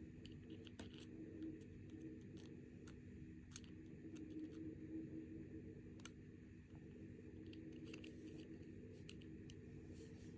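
Faint, scattered small clicks and snaps of rubber bands and a plastic hook being worked on a bracelet loom, over a steady low hum.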